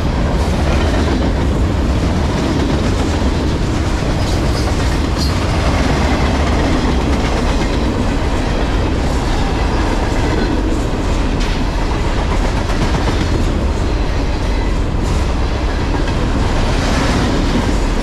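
Freight cars of a CSX manifest train rolling past: a steady, loud rumble with the wheels clacking over the rail joints.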